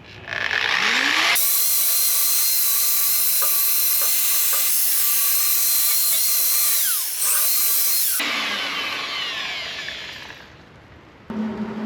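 Angle grinder spinning up, grinding on the snowblower's steel to strip paint and grind back bad welds, then switched off and winding down. The motor rises in pitch as it starts, runs steadily with a high whine for about seven seconds, then falls in pitch and fades.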